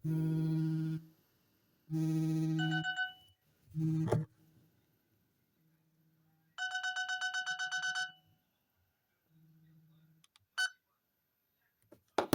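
Nokia 216 feature phone sounding its alarm tone through its small speaker: two electronic beeps about a second long and two seconds apart, a short one after them, then a faster pulsing tone lasting about a second and a half. A brief click follows.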